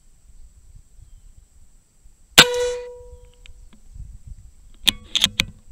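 A Seneca Eagle Claw .25 PCP air rifle fires one shot, a sharp crack with a brief metallic ring that dies away within about half a second. A few quick clicks follow near the end.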